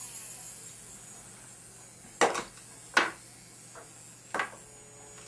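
Small electronics parts and clip-lead wires being handled and set down on a desk: a few sharp clicks and knocks, the clearest about two, three and four and a half seconds in, over a faint steady hum.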